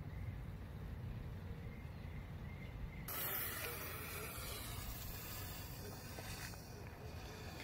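Fuse of a Phantom Fireworks Bazooka Torch handheld firework catching about three seconds in and hissing steadily as it burns, spitting sparks.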